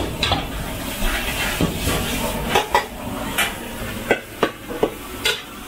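Metal ladle scraping and knocking against a steel wok in irregular strokes as a stir-fry is tossed, with the food sizzling underneath.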